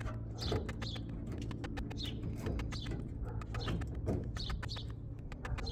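Small birds chirping outdoors, short high chirps repeating every half second or so, over a steady low hum and a scatter of small clicks.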